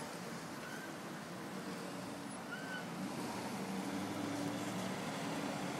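City street ambience: steady traffic noise, with a vehicle engine's low hum coming in about halfway through and getting slightly louder. Two short, faint high chirps sound in the first half.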